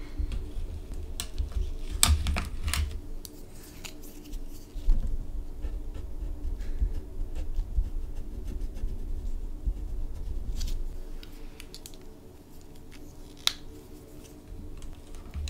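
Hands handling plastic markers: a few sharp plastic clicks in the first few seconds as a marker is taken from its case and uncapped, then the marker tip scratching on paper, and one more click near the end.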